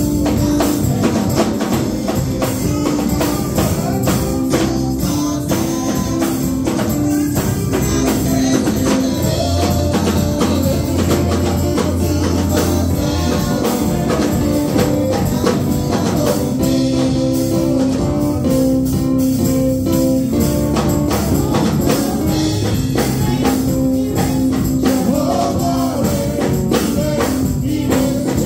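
Live gospel praise music: several singers on microphones over an electric keyboard and drum kit, with percussion keeping a steady beat.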